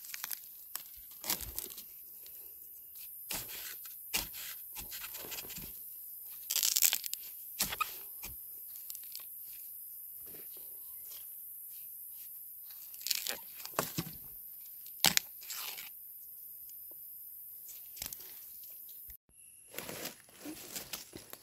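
Machete cutting at the base of a young bamboo shoot among dry leaf litter: irregular crunches and tearing sounds, over a steady high hiss.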